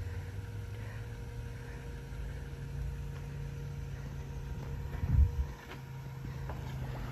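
Jeep Wrangler's engine running with a steady low rumble, with a brief louder surge about five seconds in as it creeps along the muddy trail.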